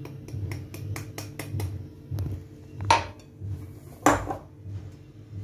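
A drinking glass clinking and tapping against a glass mixing bowl as dry semolina is tipped in from it: a quick run of light clicks, then two louder knocks, the second about four seconds in.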